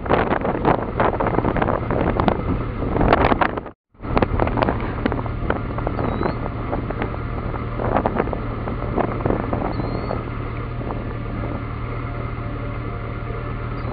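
Wind buffeting the microphone in gusts over a steady low hum. There is a brief dropout to silence about four seconds in, after which the wind noise is steadier and less gusty.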